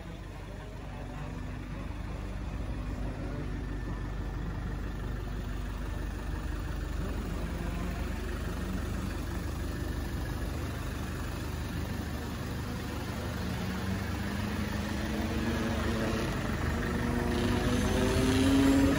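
Range Rover Velar's 2.0-litre four-cylinder diesel idling steadily, growing louder toward the end as the front of the car comes closer, where pitched lines in the hum rise.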